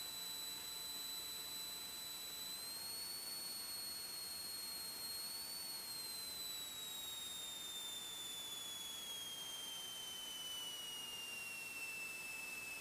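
Cockpit audio of a Commander light aircraft landing: a high, thin whine over a steady hiss. The whine rises slightly about two seconds in, then glides steadily lower as power comes off through the flare and touchdown.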